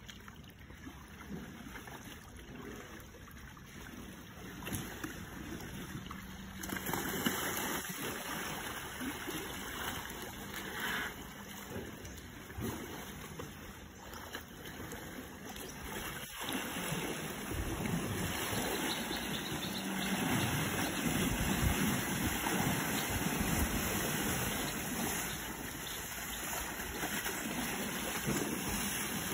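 Muddy pond water sloshing and splashing as Asian elephants roll in it and then wade out, getting louder about halfway through.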